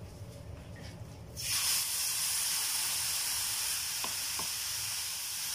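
A little water hits a hot frying pan of toasted desiccated coconut and spices, setting off a sudden sizzle about a second and a half in that then carries on steadily as the water boils off. Two faint clicks come near the middle.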